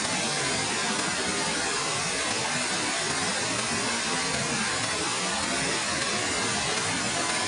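Waterfall: falling water making a steady, even rushing noise with no breaks.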